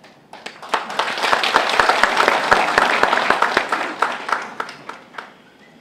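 Audience applauding. The clapping builds within the first second and dies away about five seconds in.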